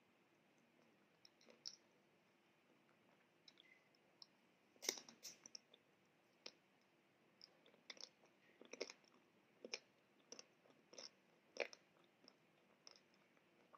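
Biting and chewing a Magnum Almond ice cream bar: a sharp crack of the chocolate-and-almond coating about five seconds in, then scattered crunchy clicks as it is chewed.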